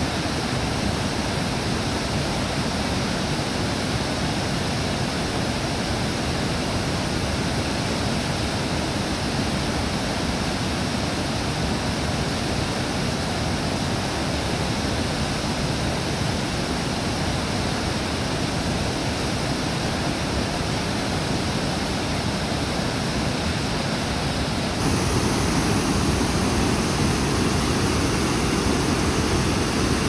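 Water pouring over a dam spillway and churning down onto the rocks below: a steady rushing. Near the end the rush becomes louder and heavier.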